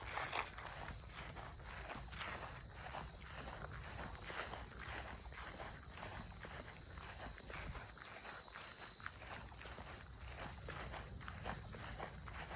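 Footsteps crunching at a steady walking pace, about two steps a second, over a continuous high-pitched insect trill.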